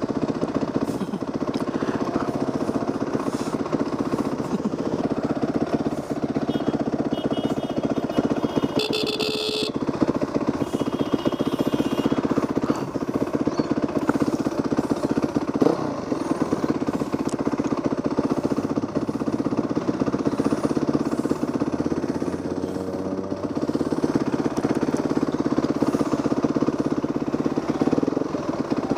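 Yamaha WR450F dirt bike's single-cylinder four-stroke engine running steadily under way, with a fast, even thumping beat. It eases off briefly about three quarters of the way through.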